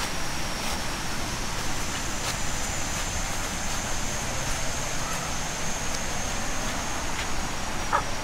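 Steady outdoor ambience: an even rushing noise with a continuous high-pitched whine, and a few faint ticks.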